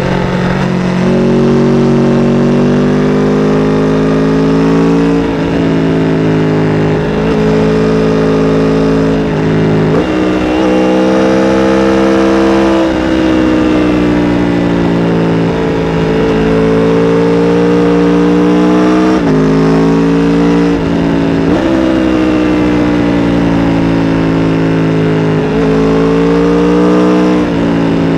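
Aprilia RSV4 RR's V4 engine through its stock exhaust, running loud with its pitch drifting up and down and jumping suddenly every few seconds, as when the bike is ridden through the gears.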